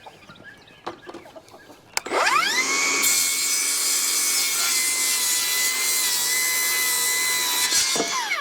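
Electric power saw cutting through wood, likely framing lumber: a click, a fast rising whine as the motor spins up about two seconds in, a steady whine with the rasp of the blade in the wood for about five seconds, then the whine falls away as the saw spins down near the end.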